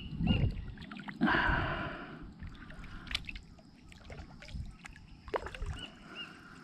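Water splashing and dripping beside a plastic kayak as it is paddled toward the bank, with a longer splash about a second in and a few sharp knocks on the hull later.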